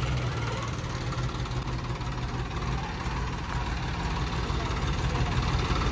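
Sonalika DI 35 tractor's diesel engine idling steadily, a low even chug.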